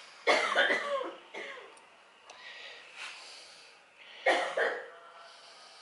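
A person coughs twice, once just after the start and again about four seconds in.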